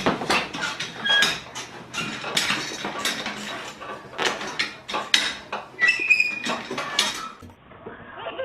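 A rapid, irregular clatter of hard objects knocking together, like dishes or cutlery, with a few short high squeaks about six seconds in. It breaks off suddenly near the end.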